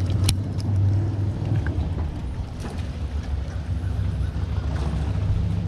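Bass boat motor running low and steady as the boat moves slowly across the water, with water and wind noise on the microphone.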